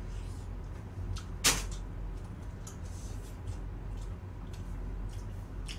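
Eating fried chicken: small crunching and chewing clicks scattered throughout, with one sharp knock about a second and a half in, over a steady low hum.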